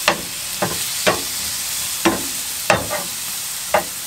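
Tomatoes and scrambled egg frying in a pan with a steady sizzle, while a slotted metal spatula scrapes and knocks against the pan about six times as the tomatoes are pressed and broken down.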